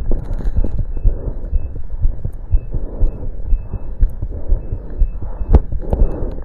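Heartbeat heard through a stethoscope during exercise: a fast run of low thumping beats, about two a second, the heart rate raised by the exertion. Bursts of hiss come between the beats, and a faint short high tone sounds about twice a second.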